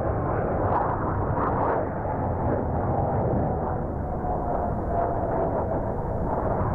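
Jet noise from an F/A-18 Hornet's twin General Electric F404 turbofans in a fast flyby: a loud, steady rumble with a faint whine that slowly falls in pitch midway.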